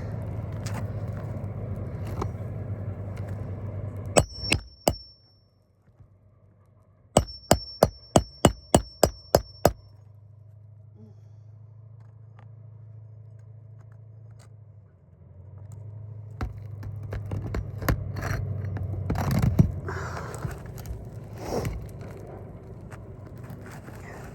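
Hand hammer driving roofing nails into asphalt shingles: three quick blows about four seconds in, then a run of about nine rapid, evenly spaced blows, each with a short metallic ring, over a steady low rumble.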